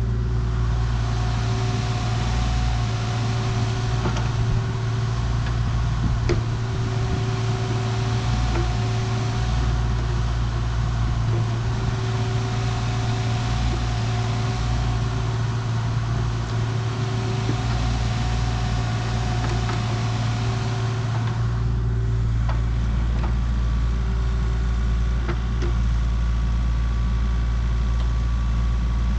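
Diesel engine of a compact construction machine running steadily under work, with a strong low hum. A hiss over the engine drops away about three-quarters of the way through.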